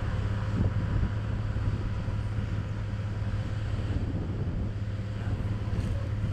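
Wind blowing across the microphone during a tornado: a steady low rumble with a hiss above it.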